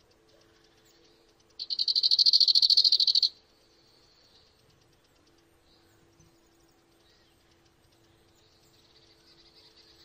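An insect trilling: a loud buzz about 1.6 s in, made of rapid pulses at roughly ten a second and lasting under two seconds. Fainter bouts of the same trill come before and after it, over a faint steady low hum.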